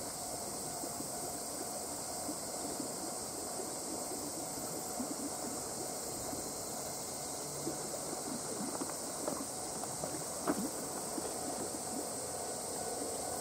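Akechi Railway single-car diesel railcar running slowly along the line, faint with distance, under a steady high-pitched hiss. A soft knock about ten seconds in.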